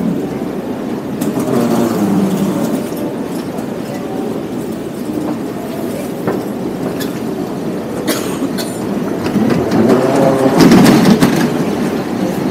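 Busy underground railway station ambience heard from a moving escalator: a steady machinery hum and crowd noise with scattered clicks, growing louder near the end as the escalator reaches the concourse.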